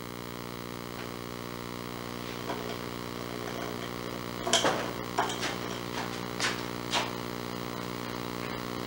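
Ring-necked parakeet biting and tugging at a small wooden drawer: a handful of short, sharp wooden clicks and knocks in the middle seconds over a steady hum.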